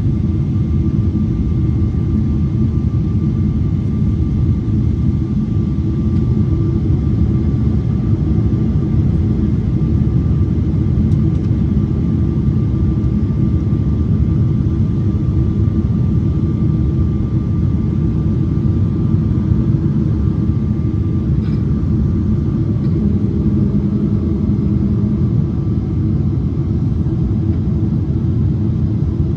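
Steady low rumble of cabin noise inside a Boeing 777-300ER on approach, from the airflow and its GE90 engines, with a faint steady high tone above it.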